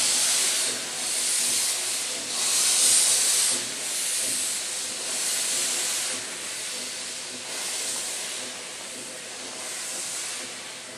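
East Broad Top narrow-gauge steam locomotive moving off slowly with its cylinder cocks open, steam hissing out in surges every second or two with each piston stroke. The hiss eases a little toward the end.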